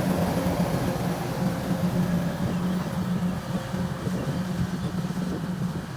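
Rice combine harvester's diesel engine running steadily under load, a constant hum with machinery noise, easing slightly toward the end.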